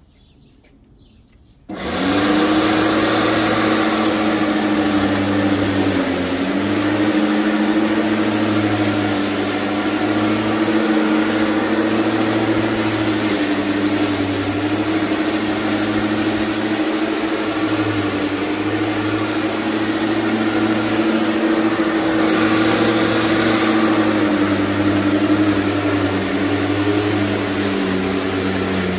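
Makita ELM3320 corded electric lawn mower switching on about two seconds in, then running with a steady motor hum and blade whir while cutting tall grass. Its pitch dips briefly a couple of times.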